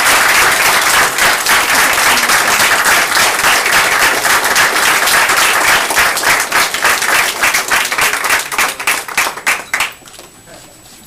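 Audience applauding: dense clapping that thins out into a few separate claps and dies away about ten seconds in.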